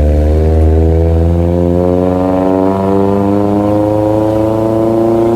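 Vehicle engine running under load, its pitch rising slowly and steadily as it gains revs.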